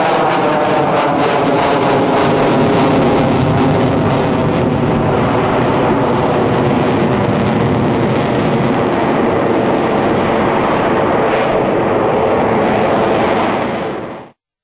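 Jet noise from an F-22 Raptor's twin Pratt & Whitney F119 turbofans flying past: a loud, steady rush with a sweeping, phasing tone in the first few seconds. It fades out quickly near the end.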